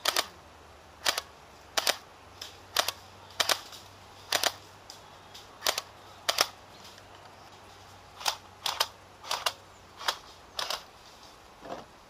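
Airsoft rifle firing single shots, a sharp snap every half second to a second, with a pause of about two seconds midway.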